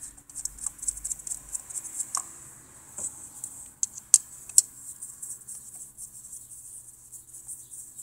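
Faint scattered clicks and scrapes of a screwdriver working the hold-down screw of a plastic coil-on-plug ignition coil on the engine's valve cover, with a few sharper clicks about two and four seconds in.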